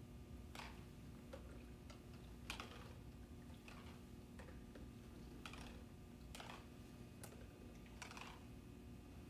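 Faint, irregular clicks and taps, about a dozen spread unevenly over several seconds, the strongest about two and a half seconds in, over a low steady room hum.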